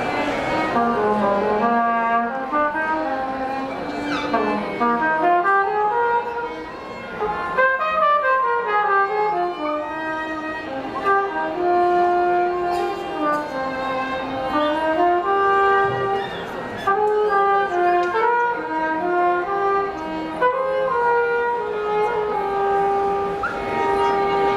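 Live trumpet and violin playing together: a melody that winds up and down in quick runs of notes, settling on a long held note near the end.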